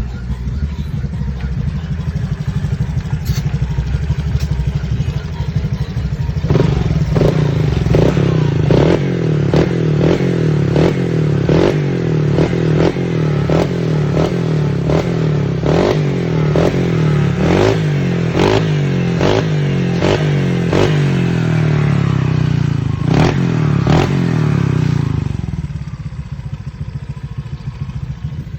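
Honda Vario scooter's single-cylinder engine idling, then held at higher revs for about twenty seconds with quick, regular blips about twice a second, before dropping back to idle.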